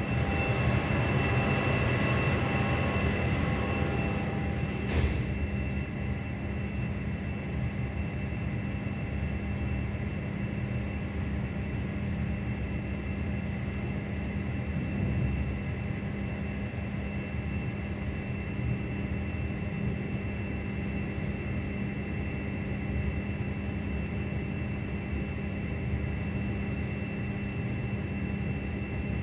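Heavy tropical downpour heard from a high-rise, a steady low roar with a faint steady hum of tones above it. A brief click about five seconds in.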